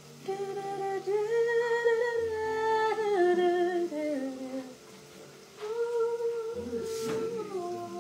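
A woman humming a wordless tune in two phrases, with long held notes that slide up and down and a short pause between the phrases.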